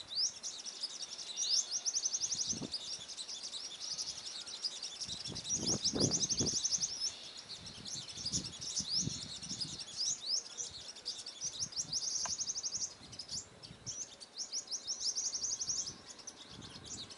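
Sunbirds calling: rapid high-pitched trills and sharp chips repeating almost without pause. A few dull low thuds come near the middle.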